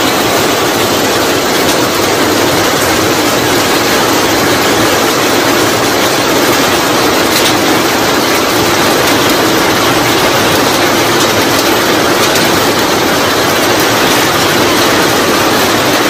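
Heavy rain falling on trees and ground: a loud, steady hiss that does not let up.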